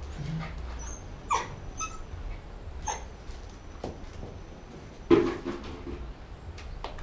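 Small dog giving several short yips and barks while playing, the loudest about five seconds in.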